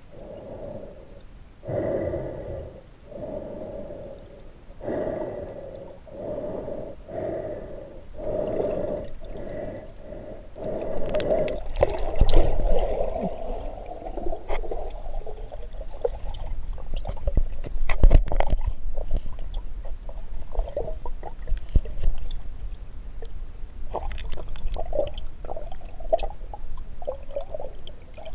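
A snorkeler breathing in and out through a snorkel, heard underwater through the camera housing. There is a regular breath about every second and a half for the first ten seconds or so, then water churning and sharp knocks as the camera is moved about, and a few shorter breaths near the end.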